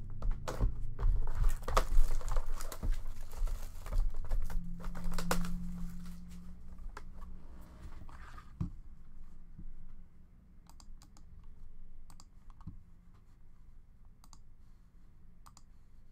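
A cardboard trading-card hobby box handled on a tabletop: a run of clicks and knocks for the first several seconds, then sparse, fainter light clicks like typing.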